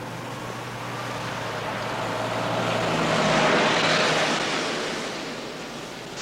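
A motor vehicle passing by: a rushing noise with a faint engine hum that grows louder to a peak about halfway through, then fades away.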